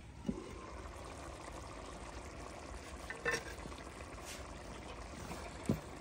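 Cookware being handled: two soft low knocks, near the start and near the end, and one sharper metallic clink about three seconds in, over a steady low hum.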